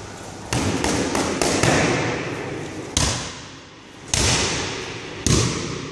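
Boxing gloves punching focus mitts, each hit a sharp smack. A quick combination of about five punches comes in the first couple of seconds, then three single punches about a second apart.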